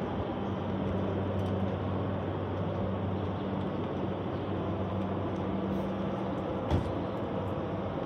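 Building ventilation fan running with a steady rushing noise and a low hum. A single short knock near the end.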